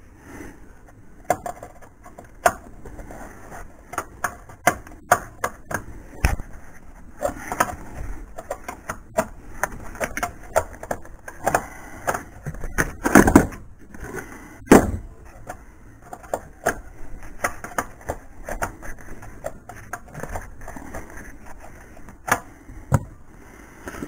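Irregular metal clicks and knocks as a wrench and washer spacers are worked in at the bolts of a Chrysler Sebring's lower door hinge, with a few louder knocks a little past halfway.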